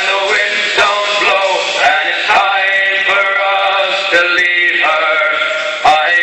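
Background music with a male singing voice.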